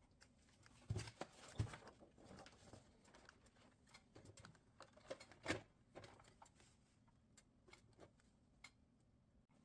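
Quiet handling noises: scattered light clicks and taps, with a few louder knocks about a second in and again past five seconds.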